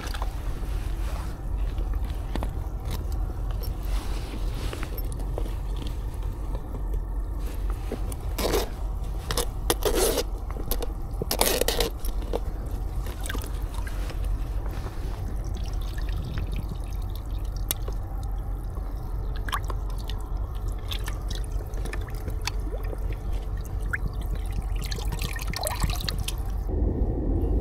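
Water sloshing and dripping in buckets, with a few short splashes, as small horse mackerel are moved by hand into a mesh live-bait keeper. A steady low rumble runs underneath.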